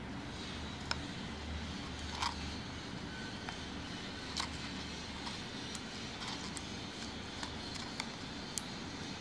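Scattered small clicks and crackles as a latex rubber dam is stretched over the teeth and worked between them by gloved fingers, over a steady low hum.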